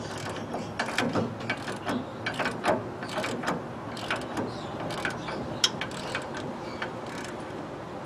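Ratchet wrench clicking in short, irregular runs as the nut on the upper ball joint of a GMC Savana G3500's front steering knuckle is tightened.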